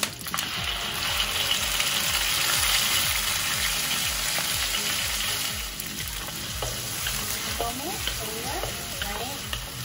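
Blended spice paste dropped into hot oil in a wok, sizzling hard as it hits the oil. The sizzle swells just after it goes in and slowly eases off over the following seconds as the paste fries.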